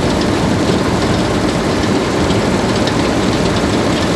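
Bizon Z056 combine harvester running steadily, its six-cylinder diesel engine and threshing gear making a dense, even noise with light rattling above it.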